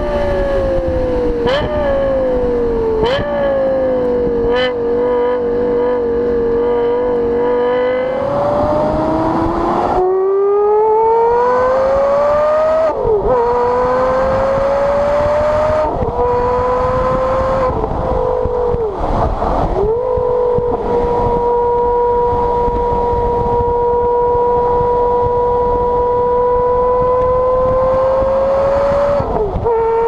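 Lexus LFA's 4.8-litre V10 exhaust, heard at the tailpipes, falling in pitch as the car slows, with three sharp throttle-blipped downshifts in the first few seconds. After about a third of the way in, a Porsche Carrera GT's 5.7-litre V10 exhaust, also heard at the tailpipe, pulls up through the gears with rising pitch and a quick drop at each upshift. It then settles into a steady cruising note for the last ten seconds or so.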